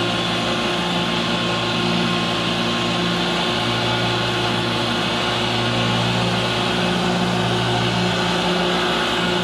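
Tractor engine running under load, driving a Path Breaker S4 four-blade swing-arm rotary mower through grass. The result is a steady mechanical drone with a low hum that wavers slightly in pitch.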